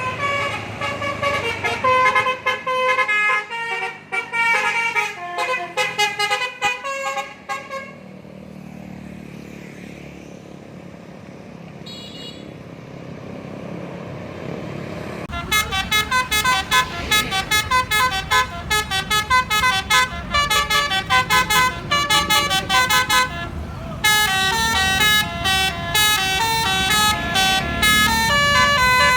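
A bus's multi-trumpet 'telolet Basuri' musical horn playing fast melodies of quick stepped notes in three long runs. There is a quieter stretch of street noise between the first and second runs.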